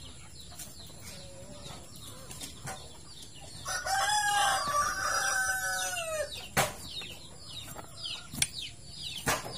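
A rooster crows once, a long call of about two and a half seconds starting roughly four seconds in and falling in pitch at the end. Faint short chirps run through the background, and a few sharp knocks come in the last few seconds.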